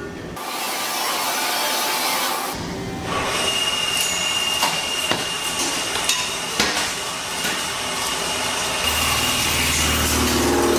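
Mazak Integrex e-1600V/10S multitasking machine milling slots in a large steel ring. A noisy hiss in the first two seconds gives way to a steady high whine with scattered sharp ticks, and a low machine hum comes in near the end.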